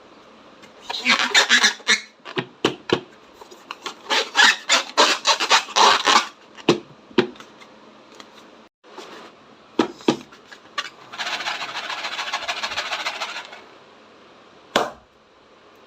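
Slime being squished and worked by hand: irregular bursts of crackling, clicking squelches, a steadier rubbing stretch about eleven seconds in, and one sharp snap near the end.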